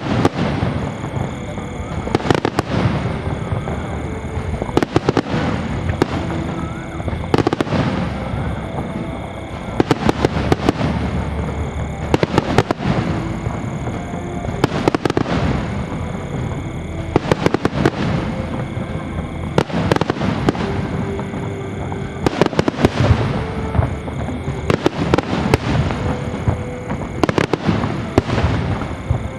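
Aerial fireworks going off in a display: volleys of sharp bangs and crackling every second or two, with music playing underneath.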